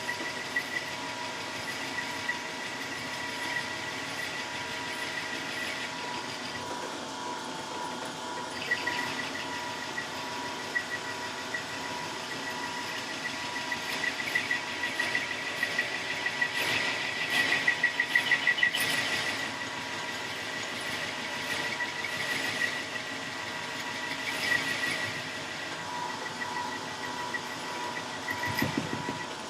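1941 South Bend 13-inch lathe running with a steady whine while the cutting tool takes a light feed across a sawmill blade guide roller, squaring its worn, rounded shoulder. A rougher cutting noise swells near the middle and then eases off.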